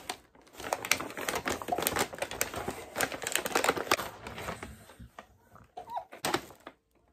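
Plastic wrapping around a potted plant crinkling and crackling as the plant is handled, a dense run of quick crinkles that thins out near the end.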